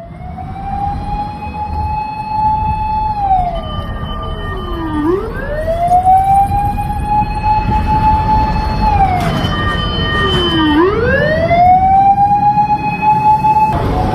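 Fire engine siren sounding a slow wail: it rises to a high held tone for about three seconds, then slides down, and does this twice. A fainter second siren overlaps it, over a low rumble of engine and road noise.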